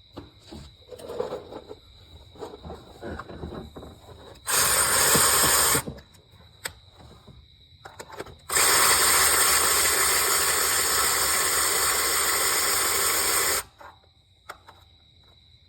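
Compressed air hissing in two strong bursts, a short one about four seconds in and a longer one of about five seconds, with light tool-handling clicks between them.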